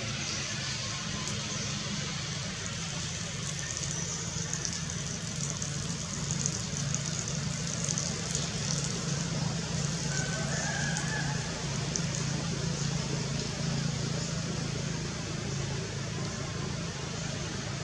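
Steady background noise: a continuous low hum under an even hiss, with a faint short higher-pitched sound about ten seconds in.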